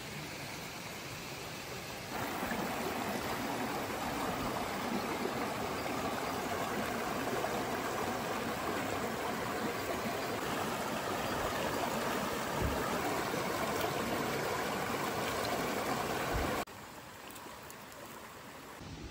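Running water of a stream, a steady rushing noise that gets louder about two seconds in and drops back suddenly a couple of seconds before the end.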